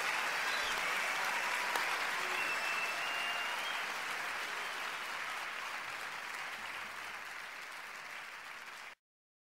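Roadside spectators applauding the passing riders. The clapping slowly fades, then cuts off abruptly near the end.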